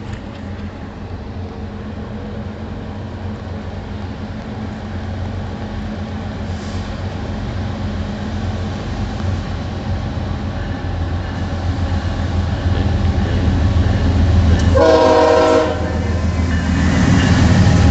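BNSF diesel freight locomotives approaching, their engine drone growing steadily louder. A short horn blast sounds about fifteen seconds in, followed by the louder rumble of the lead locomotives passing close by.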